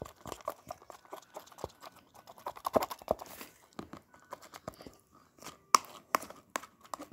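Nickelodeon slime being stirred in a clear plastic tub: irregular sticky squelches and quick clicks against the plastic, while it is still sticky and not yet come together.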